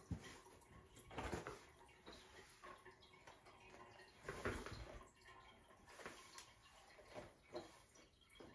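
Faint, irregular soft taps and thumps of a Siberian kitten playing on its own, a few seconds apart, the two loudest about a second in and halfway through.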